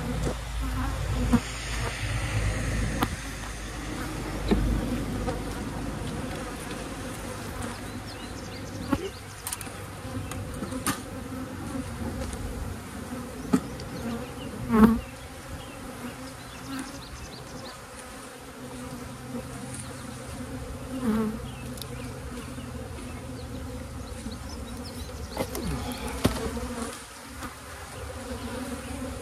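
Honey bees buzzing in a steady hum around an opened hive, with a few sharp knocks and clicks of hive parts being handled with a hive tool, the loudest about halfway through.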